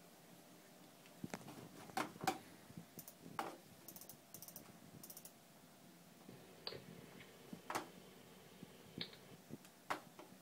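Sparse, irregular clicking of a computer keyboard and mouse.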